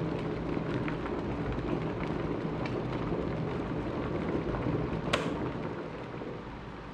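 Bajaj electric kettle bringing water to the boil: a steady crackling hiss of bubbling water. About five seconds in, its thermostat switch clicks off and the boiling sound slowly dies away.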